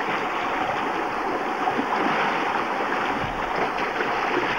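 Fast river water rushing steadily past the wader, white water over rocks.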